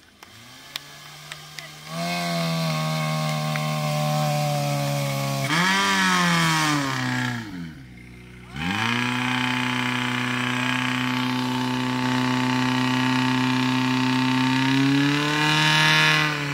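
Portable fire pump's engine running at high revs, starting up loud about two seconds in. About six seconds in the revs swing up and then sag almost to stalling. They climb back and hold steady, then rise again near the end.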